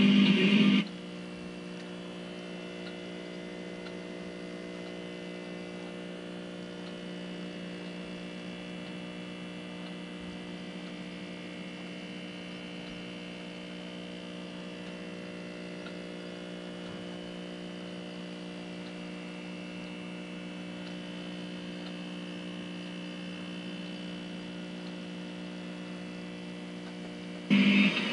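A steady electrical hum made of several held tones, unchanging throughout. A louder sound cuts in briefly at the very start and again just before the end.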